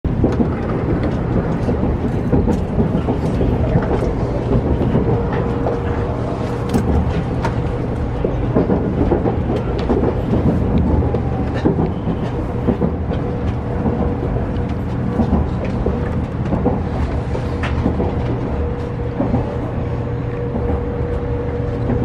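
Running noise inside a 700 series Shinkansen passenger car in motion: a steady rumble of the train on the track, with a faint steady hum and a few light clicks.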